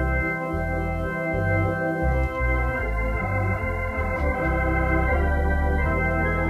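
Organ playing slow, sustained chords, the bass notes shifting every second or so under held upper notes.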